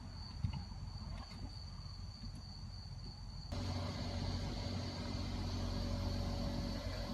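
Mercedes-Benz W222 engine idling steadily on its newly replaced fuel pump, with a faint high whine over it. About halfway through, the sound steps up suddenly, louder and fuller, and stays steady.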